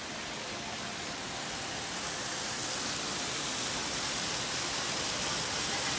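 Steady rush of falling water from an indoor fountain, an even hiss that grows slowly louder.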